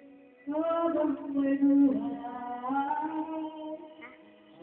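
A voice singing a melody with long held notes, starting about half a second in and briefly dropping away near the end.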